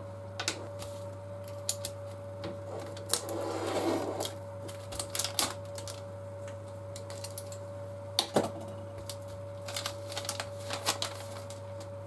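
Scattered light clicks and taps of small parts and tools set down on a workbench, with a plastic anti-static bag handled and crinkled, over a steady electrical hum. The sharpest click comes about eight seconds in.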